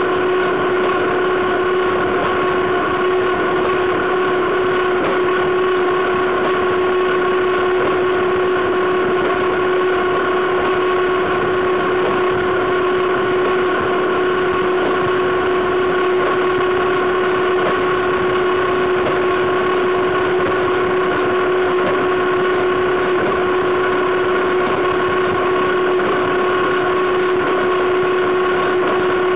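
Freight train wheels and bogie running over the rails at steady speed, heard right beside the running gear: a loud, even rumble with a steady whine over it.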